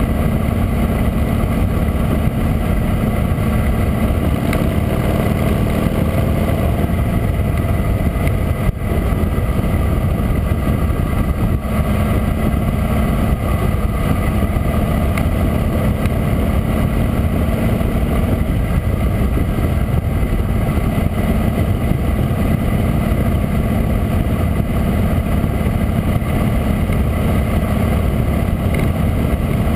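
Harley-Davidson V-twin motorcycle running at road speed, with a steady rush of wind on the bike-mounted camera.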